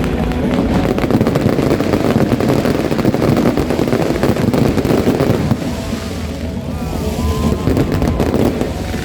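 Fireworks going off in a dense barrage: continuous crackling and popping over a low rumble, easing slightly after about six seconds.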